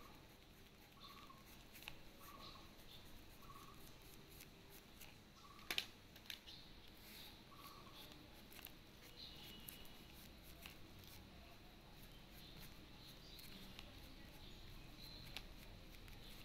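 Faint scratching of oil pastel sticks stroked across paper, with small clicks and one sharp click about six seconds in. A faint short tone repeats about once a second through the first half.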